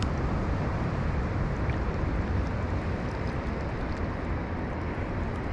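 Steady rush of fast-flowing river water, with wind rumbling on the microphone.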